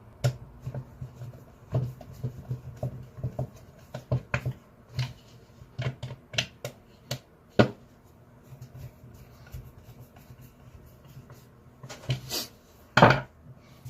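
Irregular clicks and taps of hand tools, screws and the sander's plastic housing being handled and screwed together, with two longer, louder scrapes near the end over a faint steady low hum.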